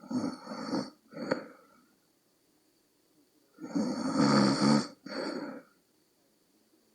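A person snoring with heavy, noisy nose breathing soon after falling asleep. There are two breath cycles about three and a half seconds apart, each a long loud breath followed by a shorter one, the second with a low buzzing vibration.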